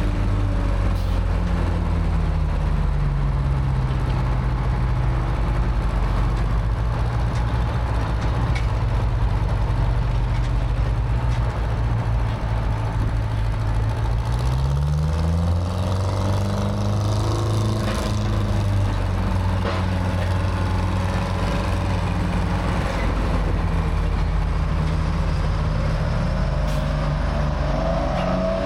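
A large engine running steadily, its pitch sinking slightly early on and rising as it speeds up about halfway through, then holding.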